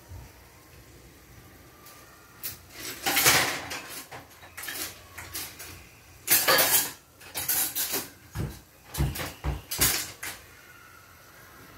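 Metal kitchen utensils and pans clattering in several loud bursts, with a few dull knocks near the end, as someone rummages for a ladle.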